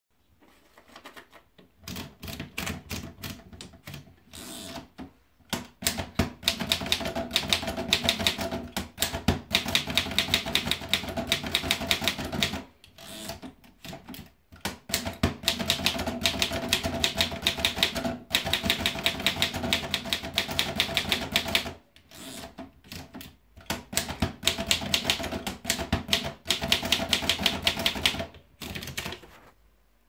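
Remington Rand Streamlined Model 5 manual portable typewriter being typed on: three runs of rapid key strikes, one per line, with short pauses between them and a few scattered clicks of paper handling in the first seconds.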